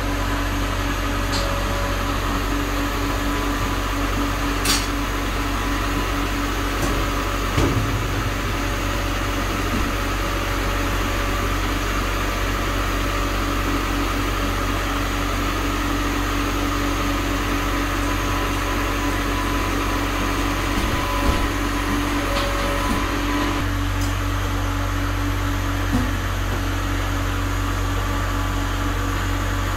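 Kale harvester machinery running with a steady mechanical hum and drone. A few short knocks and clicks are scattered through it, and the low drone shifts about two-thirds of the way in.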